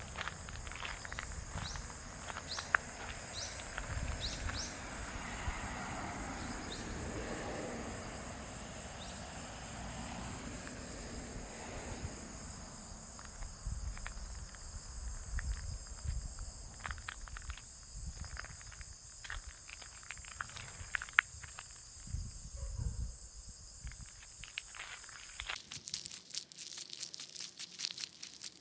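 Footsteps walking outdoors, with insects chirping steadily high in the background.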